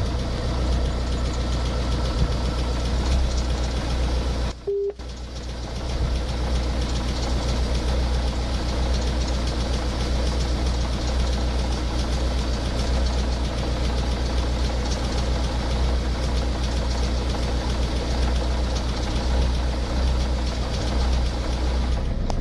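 Ford Focus 1.8 TDCi common-rail diesel engine running with a fast, steady knocking-ticking rattle, which the owner traced to a faulty high-pressure fuel pump. The sound breaks off briefly about five seconds in.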